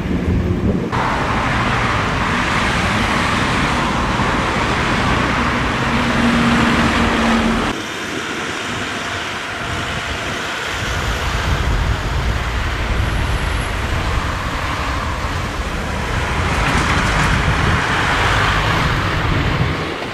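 Road traffic: cars driving past on a town road, a steady wash of engine and tyre noise. The sound shifts abruptly about a second in and again near eight seconds, where the recording is cut.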